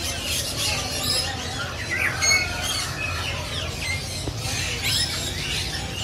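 Many caged parrots squawking at once: short, overlapping calls and quick gliding whistles with no pause, over a steady low rumble.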